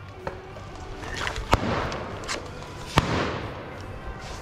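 Scattered airsoft gunfire in a firefight: sharp single cracks and pops at irregular intervals, the loudest about one and a half and three seconds in.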